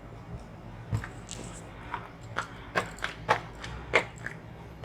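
Light clicks and knocks of kitchen utensils being handled, about eight of them at irregular intervals, over a faint low steady hum.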